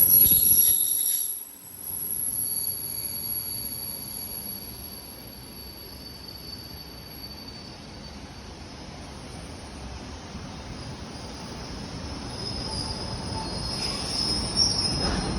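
ED4M electric train sounds at a station platform: loud for the first second and a half, then dropping sharply to a steady lower rumble and rush with faint thin high-pitched tones. It grows louder again near the end.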